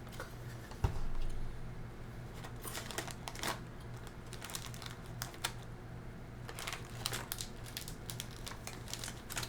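Light, irregular crinkling and crunching from a bag of Mike Popcorn as more pieces are taken out and eaten, with one louder knock about a second in.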